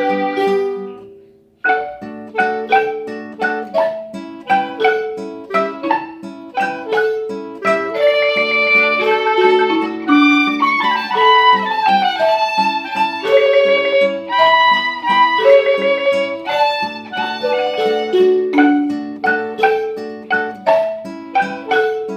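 Instrumental music on plucked string instruments, note after note struck and dying away. It breaks off almost to silence about a second in, then starts again and carries on.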